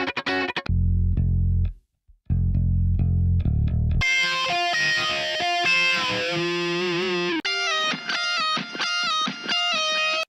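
Indie rock loop samples auditioned back to back, each one cutting off as the next starts. First comes a bass guitar line, then a distorted electric guitar lead with bent, wavering notes, then a choppier electric guitar part.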